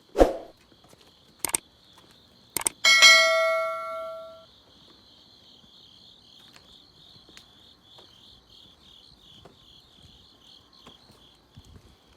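A night ambience of crickets chirping in a steady pulsing trill. Over it come a knock at the start, two short clicks, and then about three seconds in a single struck metal bell that rings out and fades over about a second and a half.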